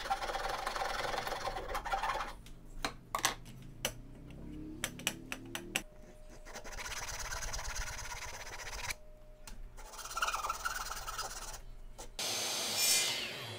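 A metal hand file rasping back and forth in a slot cut through a clamped wooden block, squaring up the slot in spells of strokes, with sharp clicks and short pauses in between. Near the end there is a brief falling whine.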